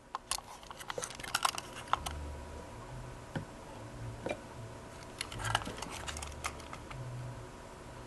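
Clicking and rattling of plugs, wire nuts and cords being handled on a fan-control test rig, in two clusters: one starting just after the beginning and one about five seconds in.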